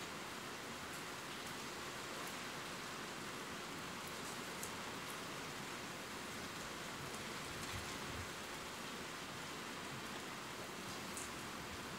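Steady rain falling, with a few faint drop ticks.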